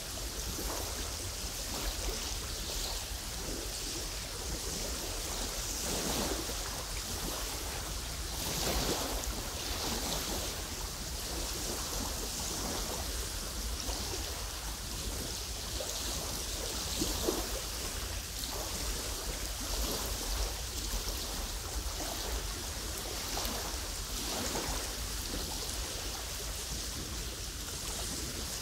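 Small wind-driven waves on a lake lapping and splashing at the shore, with a louder splash every few seconds over a steady rush of rippling water and a low wind rumble.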